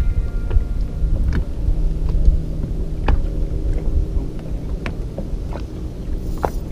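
Low rumble of wind on the microphone over a steady low hum, with a few short sharp clicks scattered through it.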